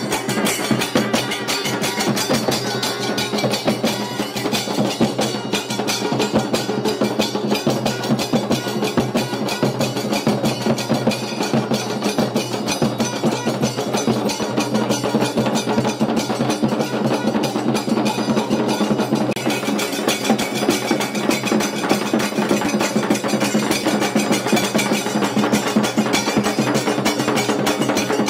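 Music driven by fast, dense drumming, with many sharp strikes a second over a steady lower tone.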